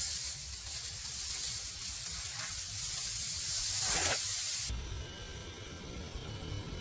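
Meat sizzling over high heat: a steady hiss that swells just before it cuts off abruptly about four and a half seconds in, leaving a quieter low rumble.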